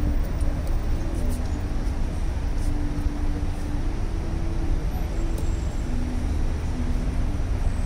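Steady low rumble of outdoor city traffic, with no single sound standing out.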